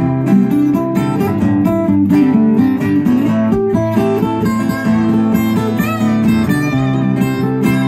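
Acoustic guitars played as a duo: strummed chords under a line of quickly changing picked notes, steady in level.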